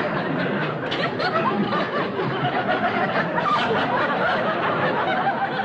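Studio audience laughing at a comedy gag, a long laugh that carries on without a break.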